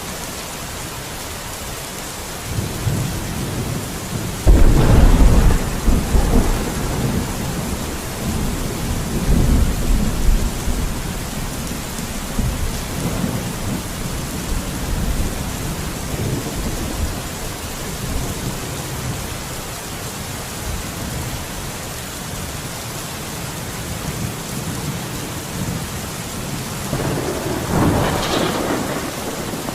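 Steady rain with thunder. A loud thunderclap about four and a half seconds in rumbles on for several seconds, and another crack of thunder comes near the end.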